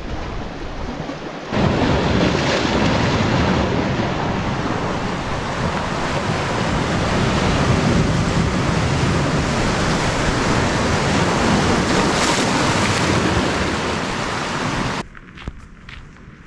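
Sea surf breaking and washing over a rocky shore: a loud, steady rush of water. Near the end it cuts off abruptly, giving way to quieter footsteps on a gravel path.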